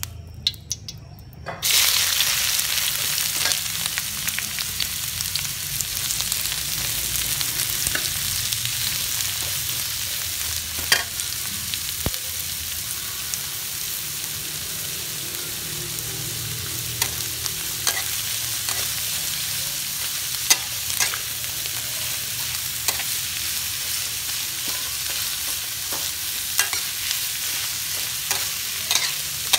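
Sliced ginger going into hot oil in a steel wok, starting a loud sizzle a little under two seconds in, then frying steadily while a metal spatula stirs it, with scattered clicks of the spatula against the wok.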